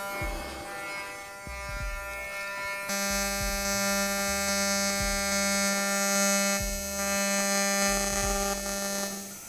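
TIG welding arc buzzing steadily on titanium tube, with the welder's low-speed pulse setting giving a slow throb about once a second. About three seconds in the buzz gets louder and a hiss joins it.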